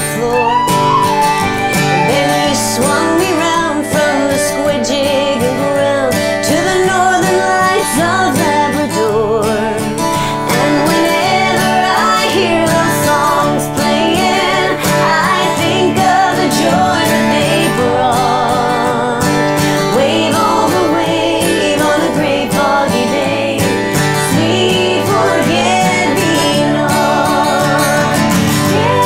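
Women singing over a strummed acoustic guitar in a country-folk song.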